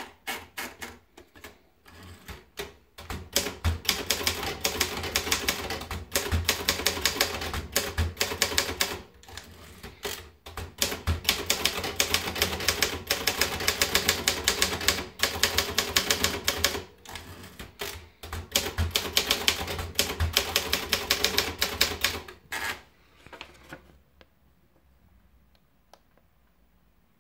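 Optima Elite manual portable typewriter being typed on fast: rapid key strikes in runs of a few seconds, broken by short pauses, stopping a few seconds before the end.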